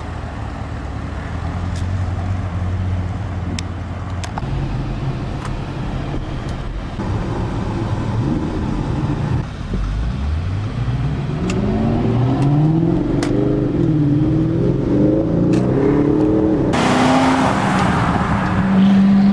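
2008 Corvette C6 Z06's 7.0-litre LS7 V8 running at a steady cruise, then from about ten seconds in accelerating, its pitch climbing and dropping back several times through gear changes. A rushing noise comes in near the end as it settles at a higher, steady pitch.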